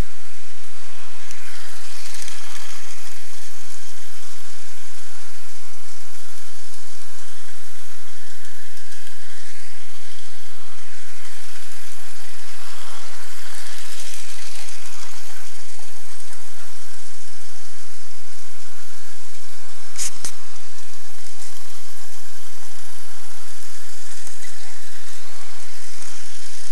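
Tiny electric motor of a Tomy Q Train toy train running along its plastic track: a high, hissy whir that swells and fades as the train passes close. A single sharp click comes about twenty seconds in.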